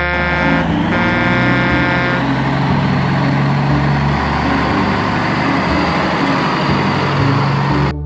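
Truck engine running steadily, with two horn blasts in the first two seconds, the second one longer. The sound cuts off abruptly near the end.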